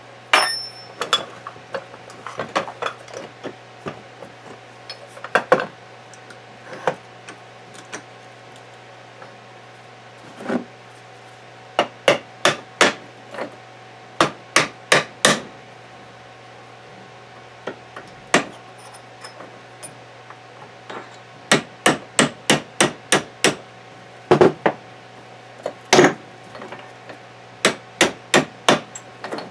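Hammer striking a pin punch to drive the tension pin out of a camper gearbox's shaft: sharp metal taps in quick runs of four to eight, with pauses between.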